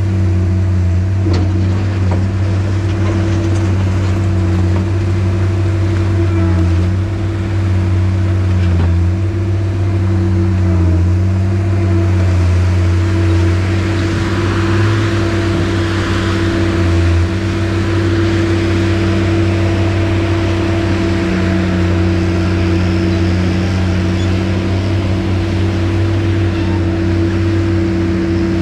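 Skid steer loader's engine running steadily at a constant speed, with a stretch of rougher added noise about halfway through.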